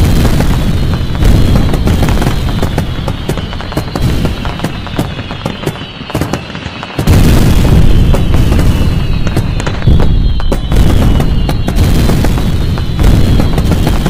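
Dense fireworks barrage: many shells bursting at once in continuous booms and crackle, with whistles gliding down in pitch over it. It thins out around six seconds in, then comes back loud all at once about seven seconds in.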